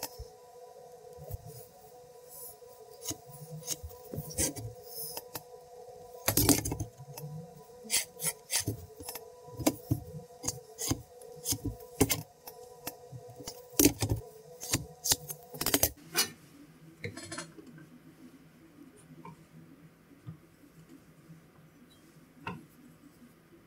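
Metal rulers and a square clicking and knocking as they are set down and shifted on a plywood sheet during marking out, with pencil scratching. A faint steady tone runs under the clicks and stops about two thirds of the way through, after which only small ticks and scratches remain.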